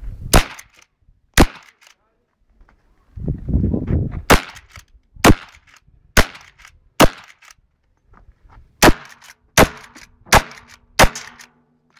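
Shotgun fired about ten times at uneven intervals, each shot a sharp, short crack.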